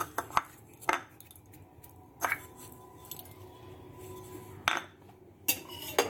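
A metal spoon clinking and knocking against steel kitchen utensils: several separate strikes, one leaving a faint ringing tone for about two seconds, then a quick run of clatter near the end.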